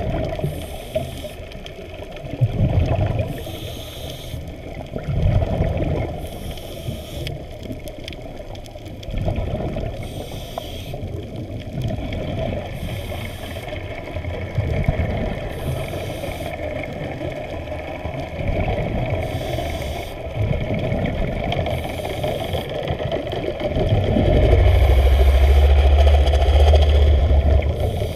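Muffled underwater sound of an action camera in its waterproof housing moving through the water, with water surging against the case every two or three seconds. A louder, steady low hum swells in near the end.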